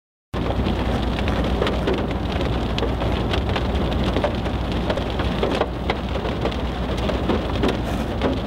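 Steady rain falling, with many close drops pattering on a hard surface over a continuous low rumble; it cuts in abruptly just after the start.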